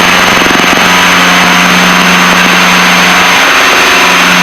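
Piper Seneca's twin piston engines and propellers running steadily at low taxi power, a constant drone with a hum and hiss inside the cockpit.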